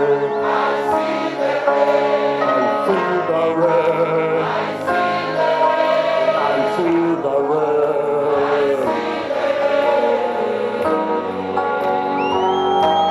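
Gospel worship music: a choir singing together over accompanying instruments, with a high gliding tone near the end.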